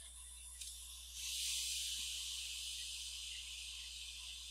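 Quick 861DW hot air rework station blowing through its nozzle: a steady hiss of airflow that starts suddenly about a second in and eases off slightly.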